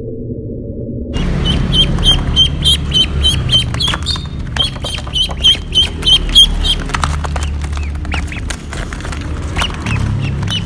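Ducks calling: a run of short, high peeping calls, about two or three a second, mixed with quacks and sharp clicks. It begins after a cut from a low, muffled sound about a second in.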